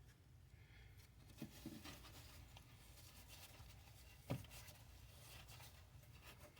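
Near silence, with a few faint taps and clicks of parts being handled; the sharpest comes about four seconds in.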